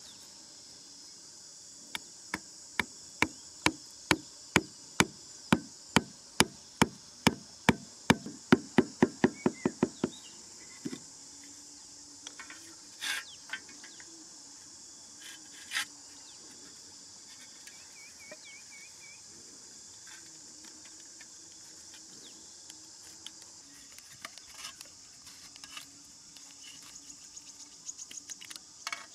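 A hatchet head knocking a small wooden peg into sandy ground: a long run of sharp knocks, about two a second, quickening near the end and stopping about ten seconds in, with a few single knocks after. Insects buzz steadily throughout.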